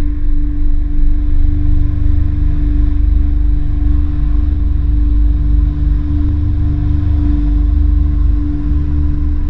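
A low, ominous score drone: one steady held tone over a deep rumble that swells and ebbs.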